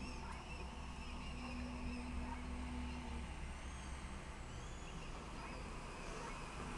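Mallard ducklings peeping faintly, a few high chirps about five seconds in, over a steady low outdoor rumble. A faint steady hum stops about three seconds in.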